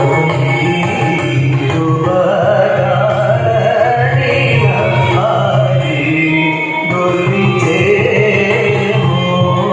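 Live Carnatic vocal music: a male singer sings gliding, ornamented phrases with violin accompaniment over a steady drone.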